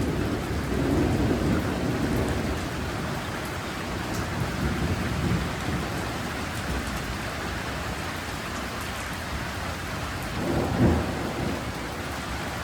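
Steady rain with thunder: a low rumble swelling over the first few seconds, then a short, louder thunder clap near the end.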